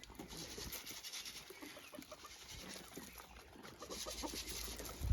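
Chickens clucking softly in short, scattered calls, with a low thump near the end.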